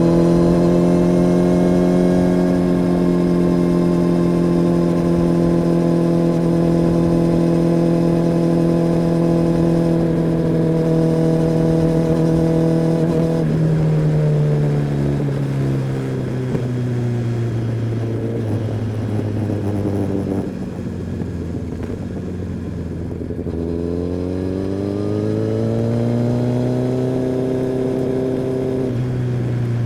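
Kawasaki ZX-10R inline-four engine and exhaust heard from the rider's seat: a steady note for about thirteen seconds, then falling as the throttle closes. It stays low for several seconds, then rises again under acceleration, with a sudden change in note near the end.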